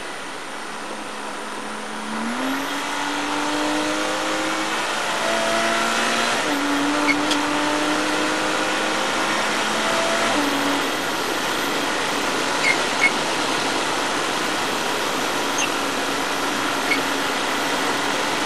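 Porsche Cayman race car's flat-six engine heard from inside the cockpit, accelerating hard out of a corner with its pitch rising and stepping between gears, over loud wind and road noise. A few short sharp knocks about halfway through.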